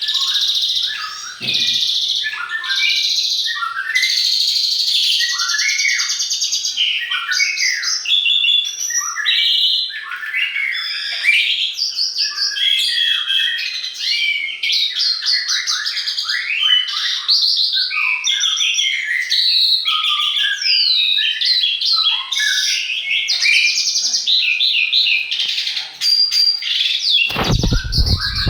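A dense chorus of songbirds chirping and whistling, many short rising and falling notes overlapping without pause. A brief low rumble comes about a second before the end.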